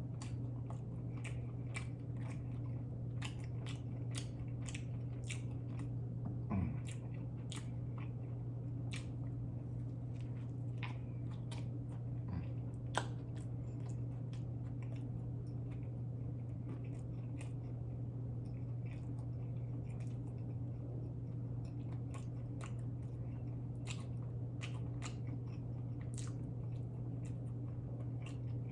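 Close-miked chewing of a thick cheeseburger: wet mouth clicks, bites and smacks scattered throughout, with two slightly louder bites about six and a half and thirteen seconds in. A steady low hum runs underneath.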